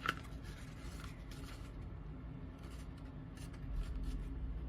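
Light clicks, taps and rustles of glued chipboard and paper craft pieces being handled and pressed into place, with a sharp click at the start.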